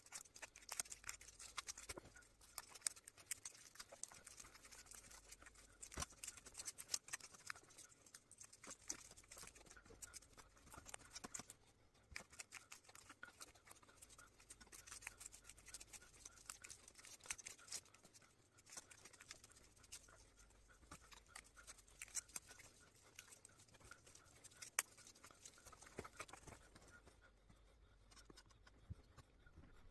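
Faint crackling and ticking of insulation tape being peeled and unwound off a CRT TV's degaussing cable, a copper wire coil, thinning out near the end.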